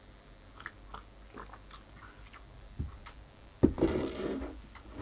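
A person quietly sipping hot tea from a ceramic mug, with small mouth and swallowing sounds, then a knock about three and a half seconds in as the mug is set down on the workbench, followed by a brief shuffle.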